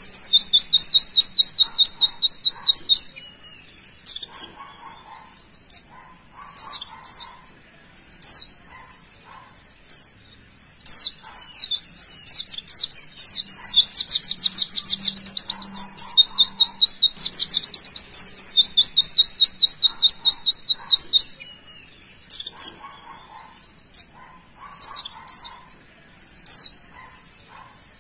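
Caged white-eye (pleci) singing its rapid-fire 'tembakan' song: long, very fast high trills of repeated notes, one in the first three seconds and a long run from about 11 to 21 seconds in, with short separate chirps in between.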